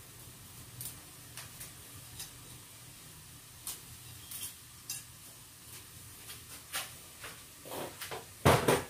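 Light clinks and knocks of a plate and kitchen utensils at a wok as dried pancit canton noodles are put into boiling water, scattered one by one over a low steady hum, with a louder clatter near the end.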